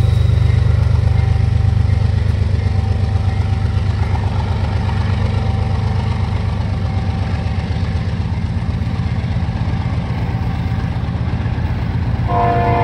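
BNSF freight train passing: a steady low rumble from the diesel locomotives and the wheels on the rails, with an even, rapid rhythm as autorack cars roll by. Near the end a held chord of several steady tones comes in.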